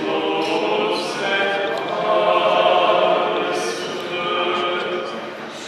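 Choir singing a Byzantine-rite liturgical chant unaccompanied, in long held notes.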